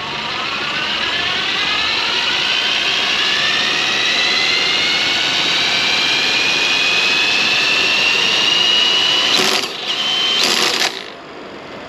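A small electric motor is bench-tested and spins up with a whine that rises steadily in pitch for about nine seconds. It cuts out briefly, whines steadily again for about a second, then stops. It is spinning slower than it should, which the mechanic puts down to crud inside or an internal short.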